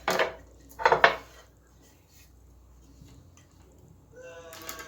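Two loud clattering knocks of hard objects about a second apart, then a short pitched tone near the end.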